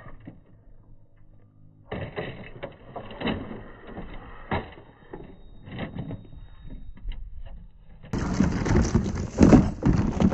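Clattering knocks of a scale RC rock crawler tumbling over rock and gravel, its plastic body and tyres striking stone. The loudest knock comes near the end.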